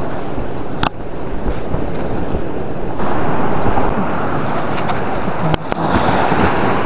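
Small waves washing onto a sandy beach, mixed with wind on the microphone; the noise grows louder about three seconds in.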